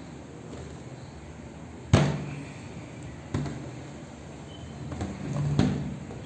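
A few short knocks or thumps, the loudest about two seconds in and lighter ones after it, over a quiet room.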